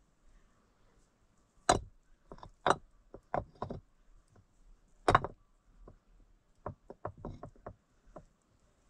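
A series of sharp, irregular knocks. There are a few heavy strikes in the first half, the loudest at about two seconds in and again at about five seconds in, then a quick run of lighter taps near the end.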